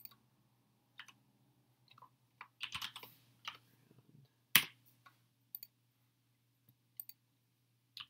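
Typing on a computer keyboard: scattered single keystrokes, a quick run of several keys about three seconds in, and one louder key press shortly after.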